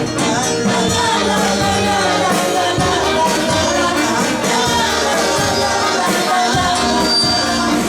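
Live church worship music: a congregation and worship band singing, with a tambourine or shaker keeping the beat.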